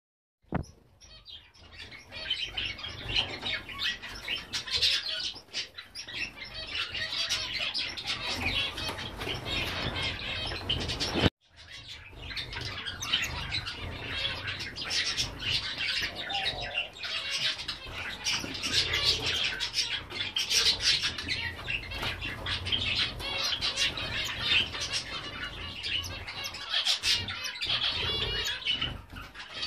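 Gouldian finches and star finches twittering and calling continuously, many short high chirps overlapping, over a low rumble. A sharp click and a brief drop-out come about eleven seconds in.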